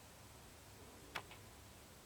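A single sharp click about a second in, with a fainter second click just after it, over otherwise near-silent outdoor background.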